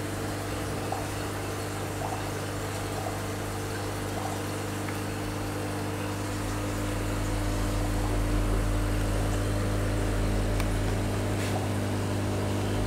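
Aquarium pump humming steadily over a wash of moving water. A deeper low rumble swells slightly from about six seconds in and eases off again near the end.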